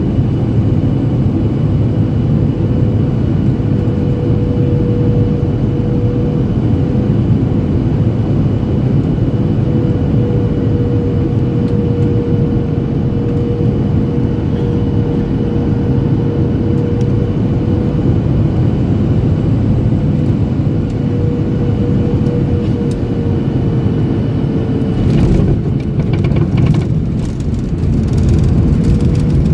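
Cabin noise in a Boeing 737-800 on its landing: the CFM56 engines' steady drone with a held fan whine. Near the end comes a cluster of rattles and knocks through the cabin, and the whine dips slightly.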